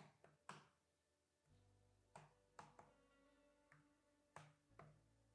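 Near silence: very faint background music, with a few soft, scattered clicks.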